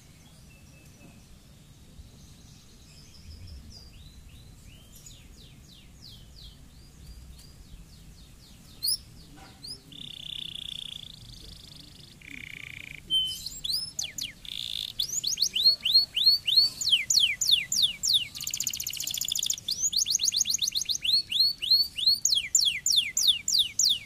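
Canary singing: soft scattered chirps at first, then held trilling rolls around the middle, and from about halfway on a loud, fast run of repeated downward-sweeping notes, about four a second.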